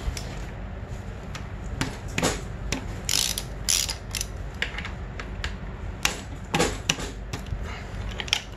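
Hand ratchet wrench clicking in short, irregular runs while loosening the bolts of a dirt bike's front brake caliper.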